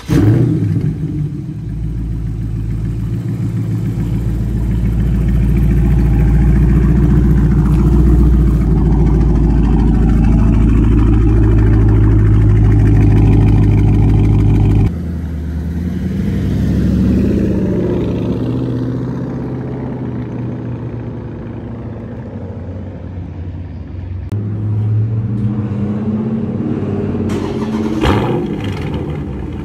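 Exhaust of a Dodge Charger Scat Pack's 392 Hemi V8, running loud and deep through 5-inch tips with the mid-muffler and resonators deleted. About halfway through, the sound cuts abruptly to another recording of the same exhaust. Near the end comes a recording of the car with only the mid-muffler deleted.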